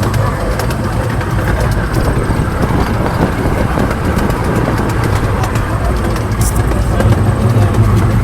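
Steady rumble of a moving vehicle, with a low hum and a scatter of small clicks and rattles.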